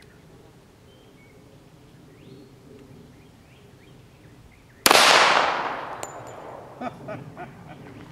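A single .45 ACP shot from a Taurus PT1911 pistol about five seconds in: one sharp, loud crack with a long fading echo, followed by a few light clicks.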